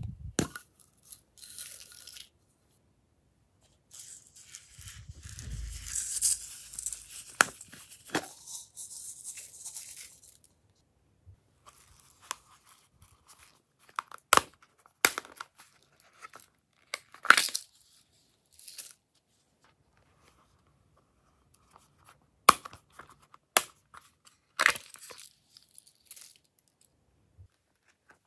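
Plastic slime tubs and slime add-ins being handled: a tub is opened, then several seconds of rustling and scraping, followed by scattered sharp clicks and taps as small pieces are handled and dropped.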